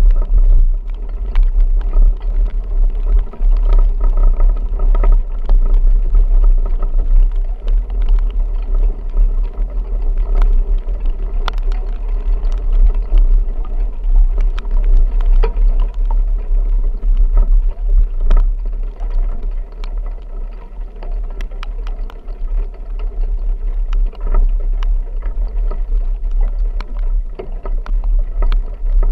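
Vehicle driving through a heavy rainstorm: a steady low rumble, with scattered sharp taps of rain striking throughout.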